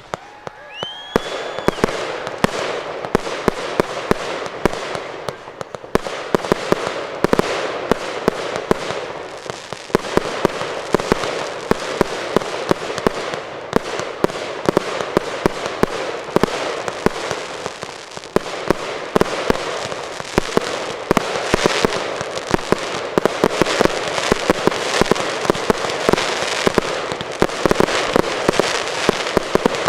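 Aerial fireworks going off in a dense, continuous barrage: rapid crackling packed with frequent sharp bangs. There is a short whistle about a second in.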